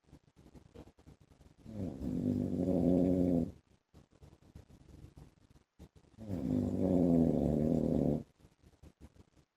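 A man snoring: two loud snores, each about two seconds long and about four seconds apart, with only faint small ticks between them.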